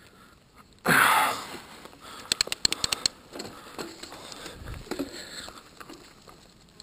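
Mountain bike setting off over a dirt and stony forest trail, heard from a camera on the rider: a short loud rush of noise about a second in, then a quick run of about ten sharp clicks, then soft knocks and rattles as the bike rolls over the ground.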